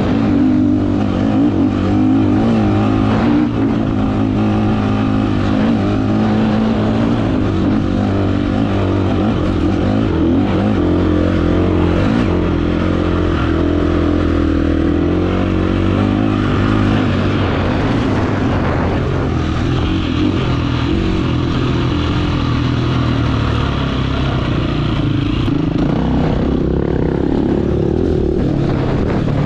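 GasGas enduro dirt bike engine running under way, its pitch rising and falling with the throttle.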